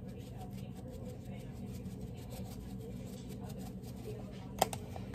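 Seasoning shaken from a can over raw chicken pieces in a plastic bowl: faint repeated taps over a steady low hum, with one sharper click near the end.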